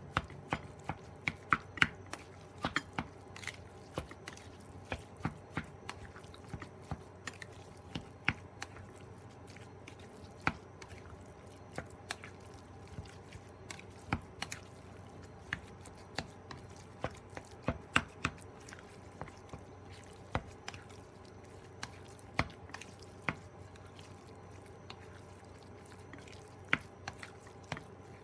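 Plastic spoon stirring raw ground chicken and egg in a bowl: irregular soft clicks and taps, a few each second, as the spoon works the sticky meat and knocks against the bowl.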